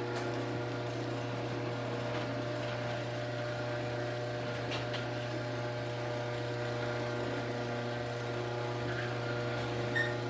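Chamberlain garage door opener motor running steadily as it drives the door, a constant hum with a low tone and even overtones.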